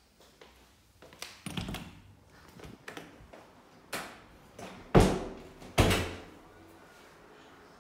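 A glass-panelled door being opened by hand. Its knob and latch click and rattle, then three sharp thumps about a second apart, the middle one the loudest.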